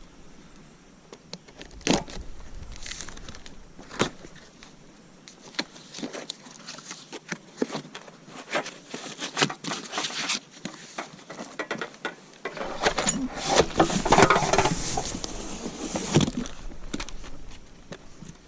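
Unpacking and handling noises: scattered knocks and clicks of parts being picked up and set down, with a denser stretch of rustling and clattering from about two-thirds of the way in until near the end.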